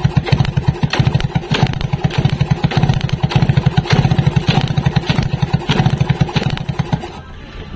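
Two-stroke Yamaha motorcycle engine being turned over with its spark plug out for a spark test: a fast, even chatter that stops about seven seconds in.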